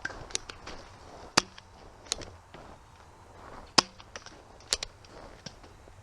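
Spring-powered Nerf pistols firing foam darts: a string of sharp, irregular snaps and clicks, about six loud ones with fainter clicks between.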